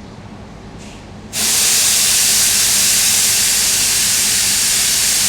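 Espresso machine hissing loudly and steadily. It is quieter for about the first second, then comes back up suddenly to full strength.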